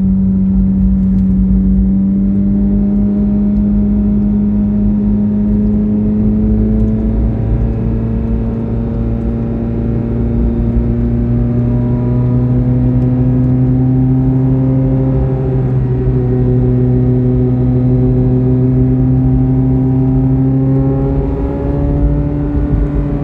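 Corvette C8 Z06's flat-plane-crank V8 running steadily at moderate revs while driving, its pitch slowly rising over the stretch, with a quick change in pitch near the end.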